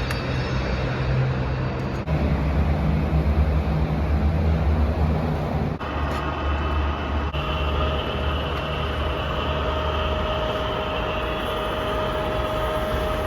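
Ooya RE-1600 radial drill press running, a steady motor and gearbox hum. The sound shifts about two seconds in and again around six seconds, and a steady whine comes in about seven seconds in.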